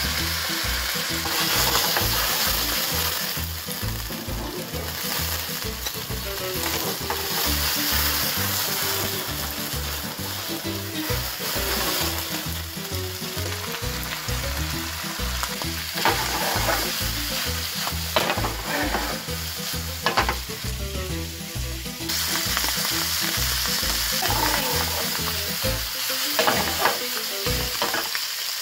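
Mushrooms and onion sizzling as they fry and are stirred in a frying pan, with a few sharp knocks in the second half.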